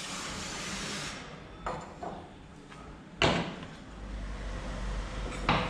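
Aerosol spray can hissing as cleaner is sprayed into a scooter's variator housing, cutting off about a second in. Then a few sharp knocks, the loudest about three seconds in and another near the end.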